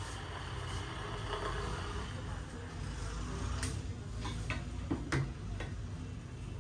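Steady low background rumble of a street, with a handful of sharp taps in the second half, the loudest about five seconds in.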